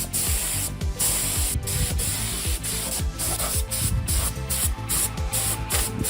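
Background electronic music with a repeating, pumping bass beat, over a steady high hiss.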